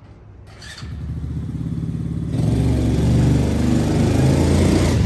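125cc ATV engine running under throttle as the quad is ridden toward the microphone, its carburetor freshly swapped. The sound grows louder about a second in, jumps louder again past two seconds, then holds steady.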